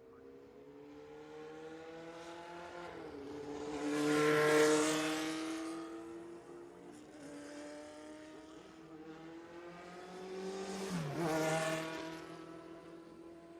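Formula One cars passing at speed, twice: each engine note grows louder, then drops in pitch as the car goes by, the first about four seconds in and the second about eleven seconds in.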